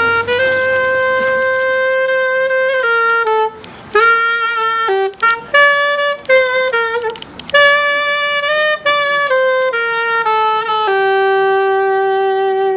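Solo saxophone playing a slow melody in long held notes, with a couple of brief breaks, ending on a long low note.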